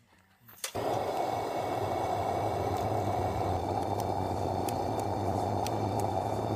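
Brass pressure lantern being lit: a steady hiss of pressurised flame starts just under a second in, with a few faint sharp ticks over it.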